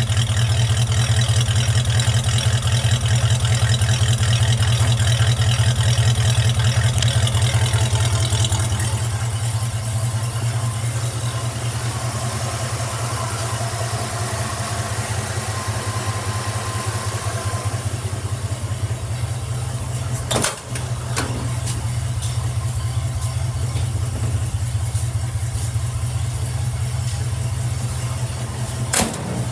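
Project truck's engine idling steadily after a warm start, with its vacuum leak fixed. The idle eases down a little about a third of the way in, and two sharp clicks come about two-thirds through and near the end.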